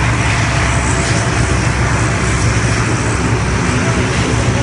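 Lockheed C-130 Hercules's four turboprop engines running on the ground: a loud, steady drone with a deep hum underneath.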